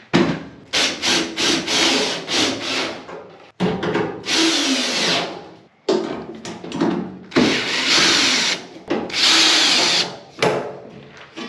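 Cordless drill/driver running in a string of bursts, some quick trigger pulses and several longer runs of a second or two whose whine rises and falls: screws being driven to put the dryer's panels back together.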